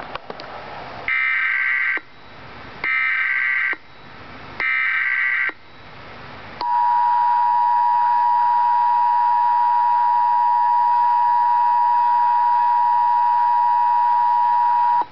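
Emergency Alert System broadcast tones: three short bursts of SAME digital header data, each about a second long, then the EAS Attention Signal, a steady two-note tone held for about eight seconds. This is the opening of a Required Monthly Test of the Emergency Alert System.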